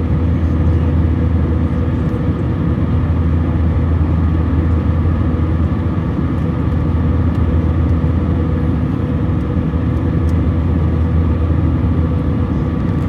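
Airbus A321 jet engines and airflow making a steady, deep drone with a few steady tones running through it.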